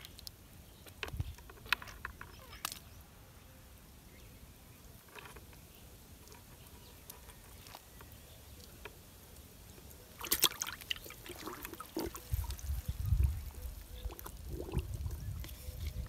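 Light clicks of hands working a hook out of a catfish. About ten seconds in comes a burst of splashing and sloshing in a plastic bucket of water, as the catfish goes in and moves about, with low bumps against the bucket.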